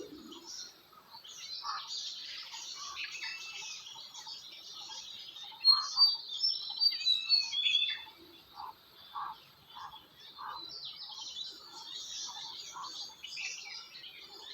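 Several birds chirping and singing together in a forest chorus, with one louder bird giving a run of clear, sweeping notes about halfway through, and short lower calls repeating about once a second.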